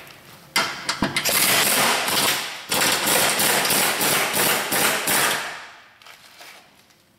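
Air-powered wrench running hard on a subframe bolt, a dense rapid rattle mixed with air noise, in two long runs with a short break about two and a half seconds in, then trailing off about six seconds in. The bolts are being backed off to lower the subframe.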